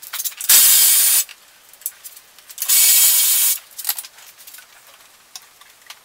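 Two loud bursts of hissing pressurised spray, each lasting under a second, about two seconds apart, with a few faint clicks around them.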